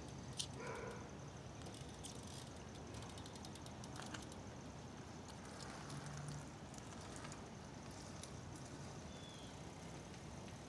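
A BMX bike ridden on wet ground, heard faintly as scattered light clicks and ticks over a steady outdoor background, with one sharper tick about half a second in.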